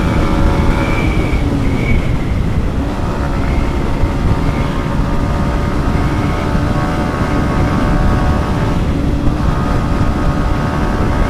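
Yamaha MT-15's single-cylinder engine running on the road at speed, with heavy wind rumble on the microphone. The engine pitch drops briefly about two seconds in, then climbs again.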